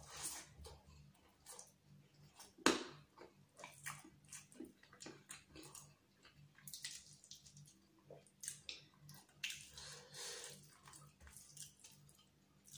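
Close-up eating sounds: chewing and mouth noises of chicken biryani eaten by hand, with fingers working rice on a steel plate. Many short clicks, the loudest a sharp one about three seconds in.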